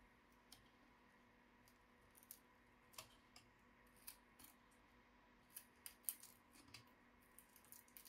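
Faint, sharp, irregular clicks and ticks from small hard laptop parts being handled during disassembly, coming more often in the second half.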